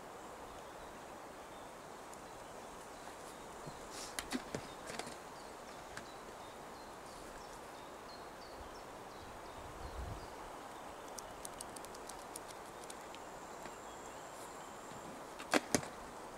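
Sharp clicks and ticks of the wire hoops of a collapsible crayfish net trap being handled and knocked together: a quick cluster of clicks about four seconds in, small ticks later, and two louder clicks in quick succession near the end, over steady outdoor background.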